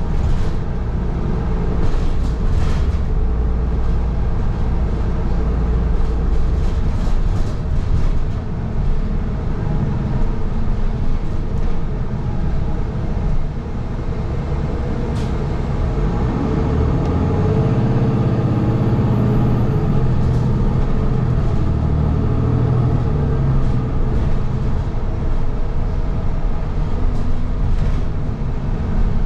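City bus heard from inside the cabin while riding: a steady low rumble of engine and road noise, with a few light rattles or clicks. The engine note rises and swells about halfway through, then settles back to a steady drone.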